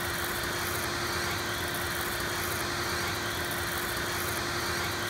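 Backpack vacuum cleaner running steadily while vacuuming a desktop through its hose and wand: an even rush of air with one constant tone in it.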